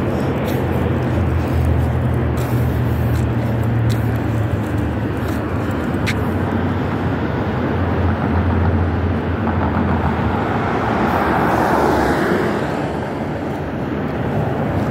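Steady road traffic noise with a low engine hum. A passing vehicle swells and fades about ten to thirteen seconds in.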